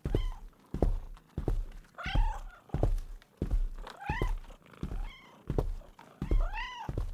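A domestic cat meowing about five times, each meow rising and falling in pitch, over a steady tread of footsteps, about one and a half steps a second.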